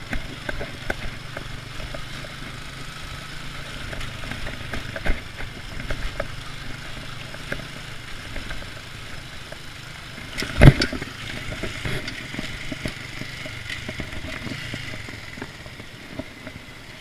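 Motorcycle engine running steadily, with scattered clattering knocks and one loud thump about ten and a half seconds in.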